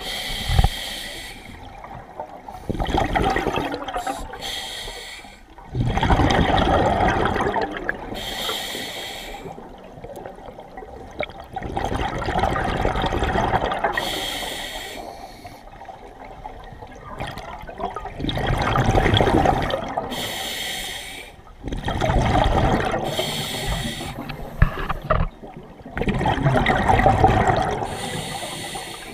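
Scuba diver breathing through a regulator underwater. Each breath is a short hiss on the inhale, then a longer rush of bubbles on the exhale, repeating every few seconds.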